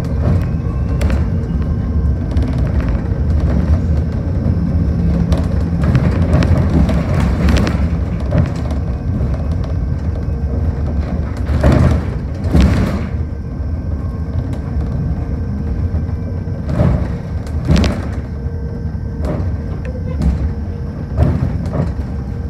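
Cabin noise of an electric bus on the move: a steady low road rumble with a faint constant electric drive whine. Several thumps and rattles as it goes over bumps, the loudest about twelve and eighteen seconds in.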